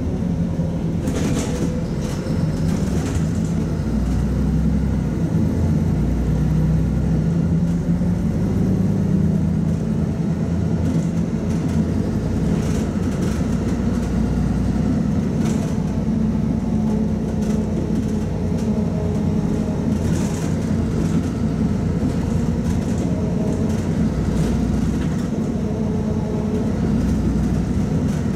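Cabin sound of a LiAZ-5292.22 city bus under way: the diesel engine and drivetrain run steadily with a low hum whose pitch rises and falls a little, and brief rattles from the body now and then.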